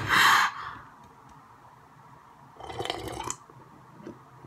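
A boy drinking water from a glass: a short, loud, breathy burst of mouth noise at the start, then a second shorter sip or gulp sound about three seconds in.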